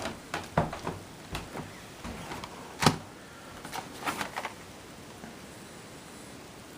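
Hands handling computer parts and their packaging: a run of light clicks and knocks with one sharper knock about three seconds in, then the handling stops.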